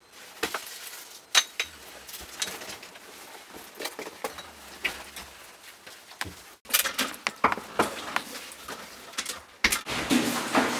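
Rustling and a scatter of sharp clicks and knocks from someone hurriedly moving about and handling things, growing busier after about six and a half seconds.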